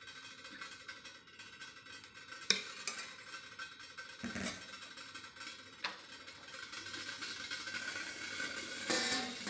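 A steel ladle clicking against a steel steamer plate as ragi idli batter is ladled in and spread, a few sharp clicks over a faint steady hiss, with louder clatter near the end.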